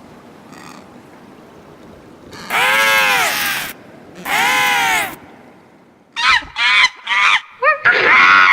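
Animal calls: two long, loud calls that rise and fall in pitch, then a quick run of short, sharp calls from about six seconds in.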